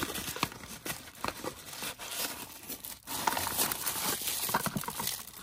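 Toy packaging being handled and torn open, with irregular crinkling and rustling.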